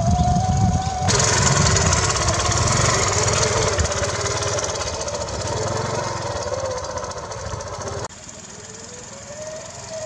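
Small motorcycle engine running as the bike is ridden, its pitch rising and falling with the throttle. About eight seconds in it drops in level and the low rumble falls away, the bike heard from farther off.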